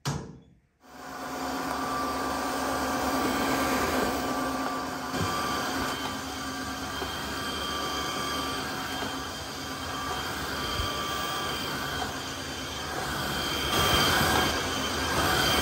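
A brief knock at the very start as the range hood's panel is pushed shut, then an upright floor cleaner running over a tiled floor: a steady whirring motor with a constant whine, starting about a second in and getting louder near the end.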